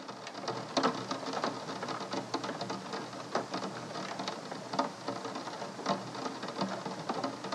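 Rain pattering, an even hiss of many small irregular drops.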